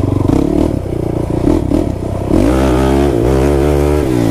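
Kawasaki KFX 450R quad's single-cylinder four-stroke engine under throttle while riding across a grassy field: choppy and uneven for about the first two seconds, then running steadily at high revs with the pitch wavering up and down.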